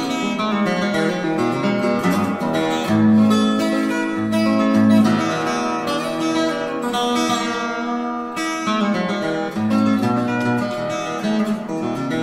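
Background music: acoustic guitar picking and strumming over a bass line.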